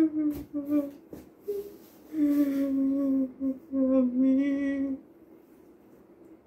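A woman crying in grief: a string of long, drawn-out moaning wails, each held about a second, stopping about five seconds in.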